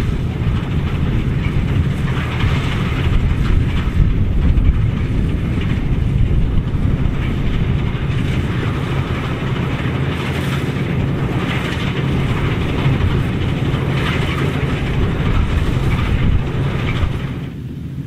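Massey Ferguson 87 combine harvester working under load while threshing barley: the engine and threshing machinery run with a steady low hum and dense mechanical clatter. The sound drops in level about a second before the end.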